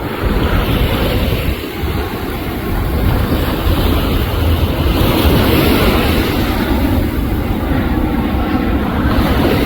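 Airbus A320 airliner on final approach, its jet engines making a steady rumble mixed with wind buffeting the microphone.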